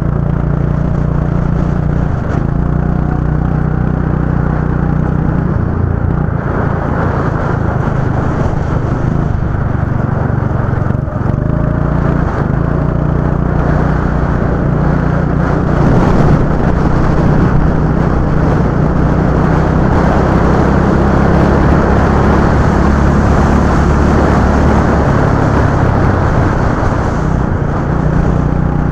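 Go-kart engine running hard, its note dropping and picking up again several times as the kart brakes for corners and accelerates out, over a rushing haze of wind and tyre noise.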